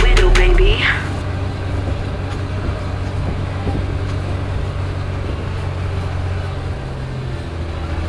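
Tractor engine running steadily under way, heard from inside the cab. Music cuts off under a second in, and the engine note shifts slightly near the end.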